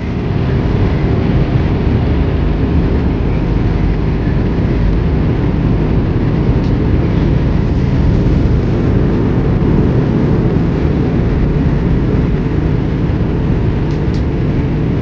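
Steady road and tyre noise with wind rush inside a car cruising on a highway, a loud, even rumble heaviest in the low range.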